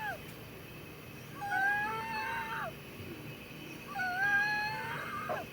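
Wheezing breaths of a patient with COPD: two drawn-out breaths, one about a second and a half in and one near the end, each carrying a musical whistle that holds two pitches at once and rises slightly. The whistle is wheezing (mengi) from narrowed airways in the lungs, in what is called an acute COPD attack.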